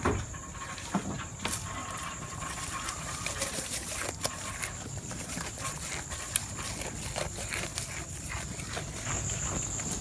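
Goats feeding greedily on awar-awar (Ficus septica) leaves, heard close up: irregular chewing clicks and crackles with leaves rustling and tearing.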